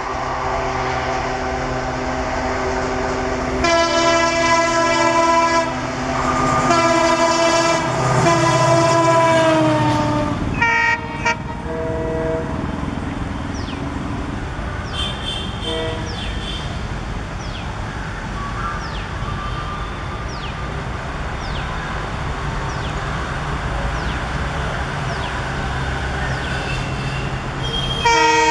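A diesel locomotive (WDP 4B) leading an express draws near with its engine running, then sounds a long multi-tone horn whose pitch falls as it passes. After that comes a steady rumble of a WDM 3D diesel locomotive with ALCO engine and its coaches approaching, with a few short horn toots. The WDM 3D's multi-tone horn sounds again near the end.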